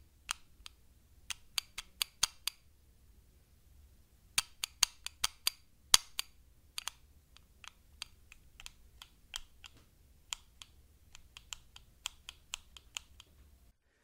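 The grip safety of a Springfield Armory 1911 Lightweight Operator pistol being squeezed in and let out again and again, giving a string of sharp metallic clicks in irregular clusters. The loudest click comes about six seconds in.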